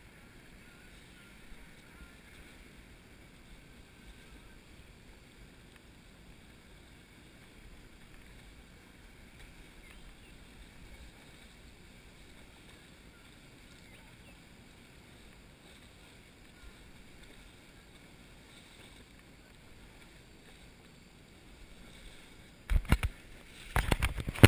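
Faint steady water sloshing as an elephant wades through a shallow river. Near the end, loud knocks and rubbing as the camera is handled.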